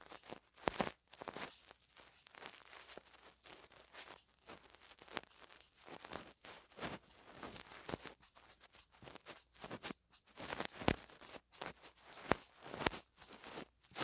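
Close-miked ASMR makeup handling: irregular light taps, clicks and rustles of cosmetics containers and packaging.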